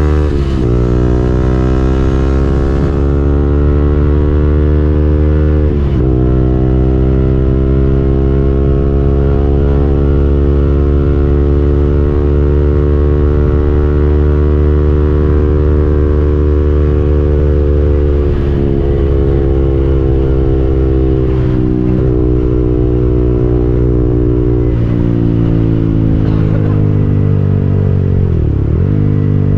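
KTM Duke 200's single-cylinder engine running under way at a steady throttle. The engine note climbs slowly through a long stretch, then dips briefly several times, as at gear changes or throttle lifts.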